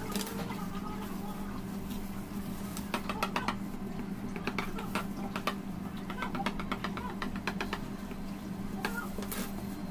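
A knife sawing through sponge cake around a plastic cake board, in several short runs of quick ticking strokes, over a steady electrical hum.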